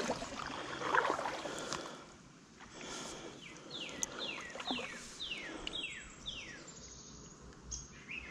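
A kayak paddle dipping and splashing in the water in the first couple of seconds, then a bird singing a run of about six falling whistled notes, roughly two a second.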